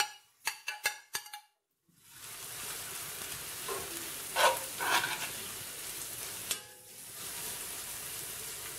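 A few sharp clicks of a metal spoon scraping grated carrot out of a plastic cup, then, after a short silence, chopped onion, mushroom stems and carrot sizzling steadily in hot sunflower oil in a frying pan while being stirred with the spoon.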